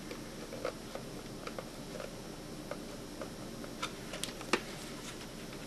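Faint, scattered light clicks and ticks from a screwdriver working the small lens screws on a plastic headlight assembly, with a sharper click at the very end.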